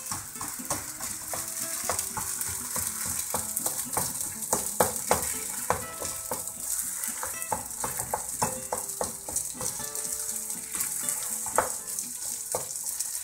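Thick fish croquette dough sizzling in a frying pan as it is stirred and scraped with a spatula, with frequent clicks and knocks of the utensil against the pan.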